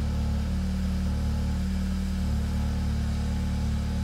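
2018 VW Golf R's turbocharged 2.0-litre four-cylinder idling, heard from inside the cabin as a steady low hum.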